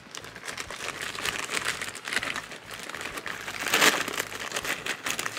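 Plastic packaging crinkling and rustling as it is handled and pulled off a new camera part, with a louder crackle just under four seconds in.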